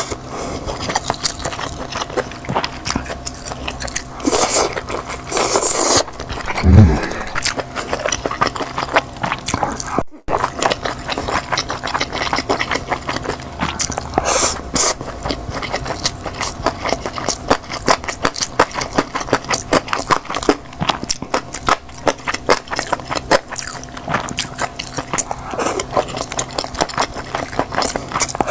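Close-miked mukbang eating: steady chewing and mouth sounds, a rapid run of small clicks, with a short thump about seven seconds in.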